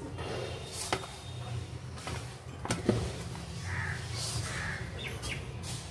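Hand kneading a crumbly flour-and-ghee dough into a stiff dough in a stainless-steel bowl: irregular rubbing and pressing of the dough, with a few sharp clicks against the steel, over a low steady hum.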